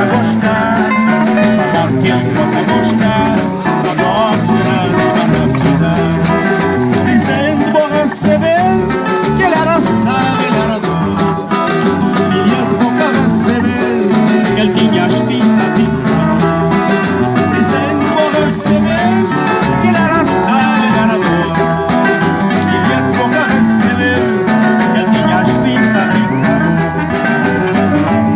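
Live Cape Verdean band music: guitars and percussion playing a steady, rhythmic song.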